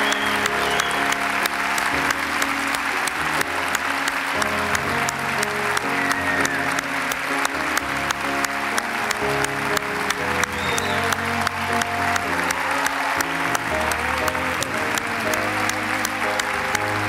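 A large congregation clapping steadily, over instrumental music playing sustained notes.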